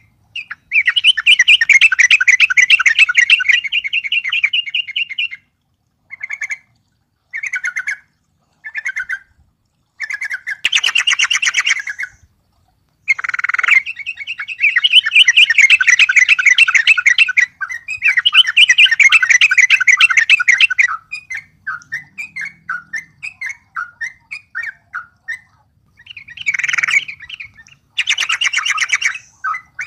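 Yellow-vented bulbul (trucuk) singing hard, stirred up by a rival: long runs of rapid chattering notes broken by short bursts and silent gaps, with a string of short separate notes after about twenty seconds.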